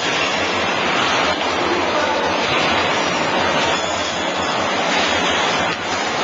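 TBS butcher's bandsaw running and cutting meat, a loud steady hiss.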